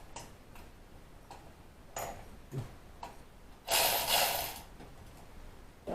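Socket ratchet on a long extension clicking in scattered ticks as a 10mm thermostat-housing bolt is worked loose. About four seconds in there is a short, loud, noisy rush of sound lasting under a second.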